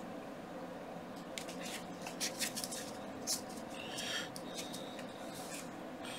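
Tarot cards being handled: a scatter of light clicks and snaps of card edges, then a short brushing slide as a card is drawn off the deck, over a low steady hum.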